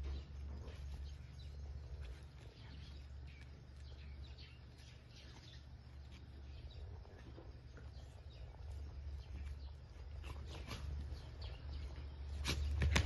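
Young dogs wrestling and scuffling on rubber matting, their paws patting and scratching, with faint bird chirps in the background over a steady low rumble. The loudest paw strikes come near the end as the dogs run up.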